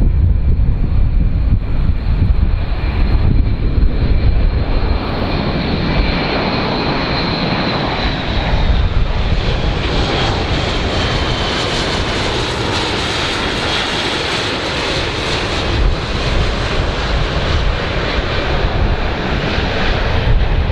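Airbus A400M Atlas's four turboprop engines and eight-bladed propellers passing low overhead: a loud, steady engine noise with a whine that falls in pitch as the aircraft goes by. Wind buffets the microphone near the start and near the end.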